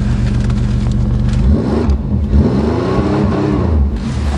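Pontiac Grand Prix's 3.1-litre V6 running just after a cold start. It idles, is revved in several quick blips from about a second and a half in, then drops back to idle near the end.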